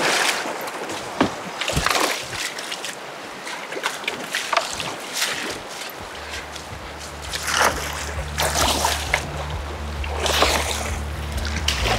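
Irregular splashing and sloshing of shallow river water from a person wading and a hooked trout being landed beside a drift boat. Low, steady background music notes come in about halfway through.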